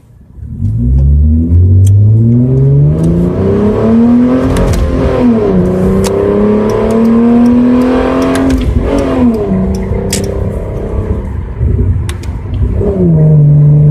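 Car engine accelerating hard through the gears, heard from inside the cabin: the revs climb steadily, drop at an upshift about five seconds in and again about nine seconds in, then settle lower near the end.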